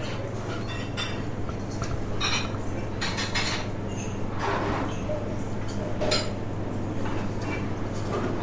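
Crockery and cutlery clinking lightly at a table, a handful of short separate clinks and handling noises over a steady low hum.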